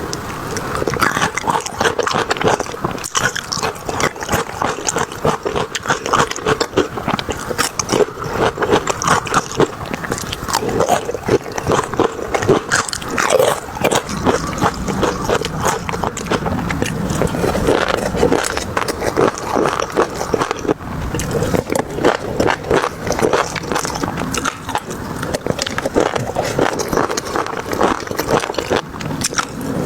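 Close-miked chewing and eating sounds: a continuous run of small, quick mouth clicks and crunches as a person bites and chews food.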